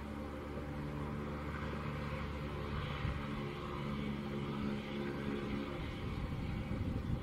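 Bombardier Challenger business jet's two tail-mounted turbofans running at low taxi power as it turns on the apron: a steady engine hum with a hiss of jet noise above it.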